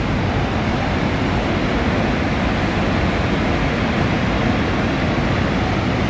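Steady, loud rush of the Savica waterfall plunging into its pool, heard close up.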